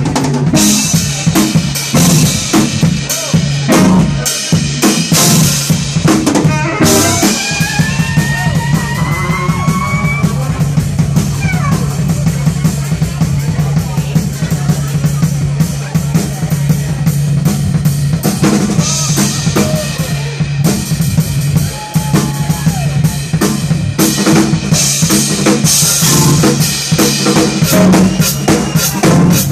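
Live funk band playing, driven by a busy drum kit of snare, rimshots and bass drum over a held low bass note. About seven seconds in, a pitched instrument plays a short line of rising slides above the groove for a few seconds.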